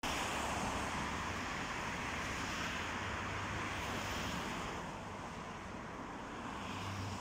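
Demolition excavators' engines making a low, steady drone under a constant hiss; the hiss eases a little about five seconds in.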